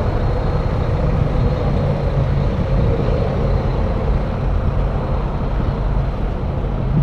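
Steady low rumble of a motor vehicle engine running at idle, unchanging throughout.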